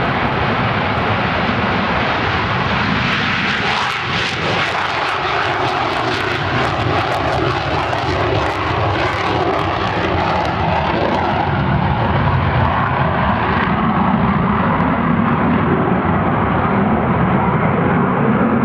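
McDonnell Douglas F-4 Phantom II taking off, its twin J79 turbojet engines at full takeoff power. The jet noise crackles as the fighter passes during its takeoff roll, then turns duller and lower from about twelve seconds in as it climbs away.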